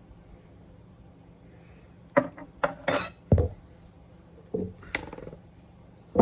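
Hard metal objects clinking and knocking together, a quick run of sharp clinks about two seconds in, a couple more a little later, and another cluster at the end, typical of metal tools and parts being handled during bolt removal.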